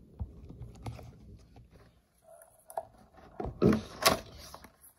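Hands handling a small cardboard box: light taps and knocks against the table, then a brief burst of cardboard scraping and rustling about three and a half to four and a half seconds in as the box's top flap is worked open.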